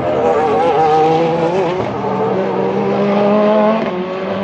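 Several Hypercar and GT3 race car engines running at once, their engine notes at different pitches rising and wavering over one another.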